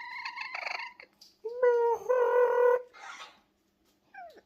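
Parrot calling: a raspy call at the start, a louder, longer, steady-pitched squawk about two seconds in, and a short falling call near the end.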